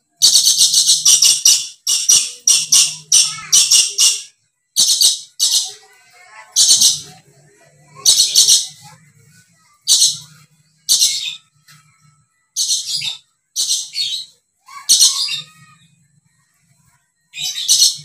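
Dusky lory calling loudly: a long series of short, harsh, high-pitched screeches, some in quick runs of three to five, others single, with short pauses between.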